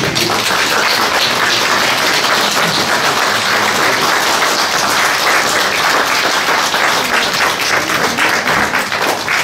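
Congregation applauding, many hands clapping at a steady level.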